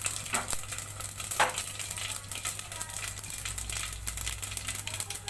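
Cumin, mustard seeds and dried red chillies sizzling in hot mustard oil in an aluminium pressure cooker, stirred with a spoon, with a couple of sharp scrapes or clicks against the pot in the first second and a half.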